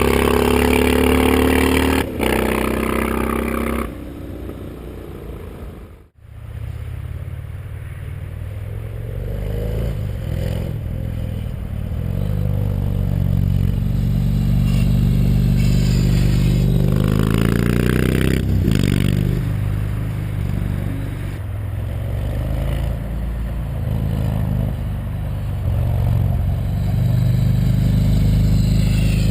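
Yamaha MT-01's big air-cooled V-twin running loud through a full titanium Akrapovic exhaust with no EXUP valve or catalysts, its note rising and falling repeatedly as the revs climb and drop. The sound dips for a few seconds and drops out briefly about six seconds in.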